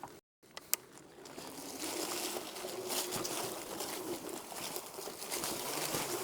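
Riding noise from a moving e-bike: wind rushing over the microphone and tyres on the road, growing louder over the first couple of seconds after a brief cut-out, with a faint steady hum under it.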